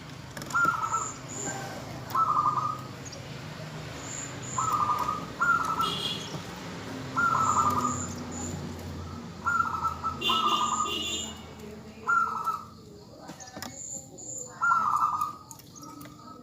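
Female zebra dove (perkutut) calling: about ten short trilled coos, each around half a second, repeated a second or two apart. These are the calls a hen gives to draw males into cooing. Faint high chirps from other small birds sound between them.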